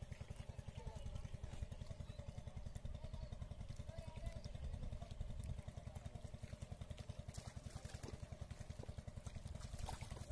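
A small engine running steadily, with a fast, even low putter.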